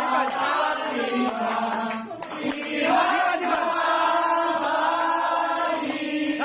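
A crowd singing together in unison, with a long held note through the second half.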